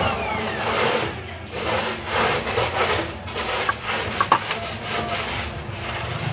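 Electric blower of a homemade waste-oil burner stove spinning down with a falling whine. The oil fire in the burner pot then puffs in irregular rushes of noise about twice a second, with a couple of sharp clicks about four seconds in.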